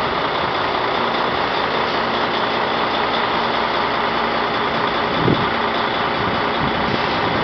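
Heavy semi-truck's diesel engine idling steadily while the truck stands still. A brief low thump about five seconds in.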